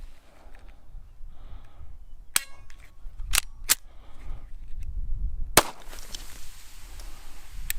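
Five pistol shots at uneven spacing: one a little over two seconds in, a quick pair about a second later, another around five and a half seconds, and a last one near the end. A low wind rumble runs under them.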